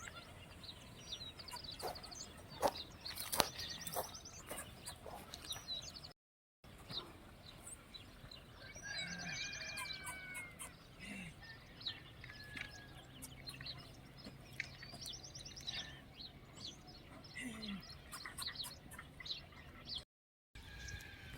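Farmyard ambience: chickens clucking and small birds chirping and trilling, with scattered clicks. The sound drops out completely twice for a moment.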